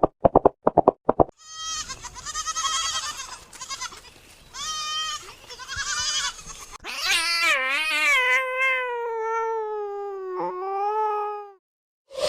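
Bleating animal: several short quavering bleats, then one long wavering bleat about seven seconds in that slowly falls in pitch. A rapid pulsing sound comes before it in the first second.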